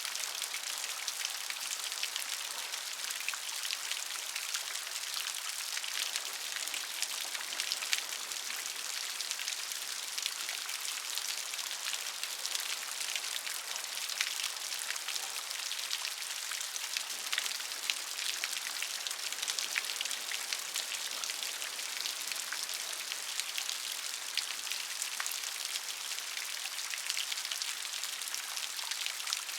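Steady rain with many small drops pattering on a surface, a dense even hiss dotted with crisp individual drop ticks.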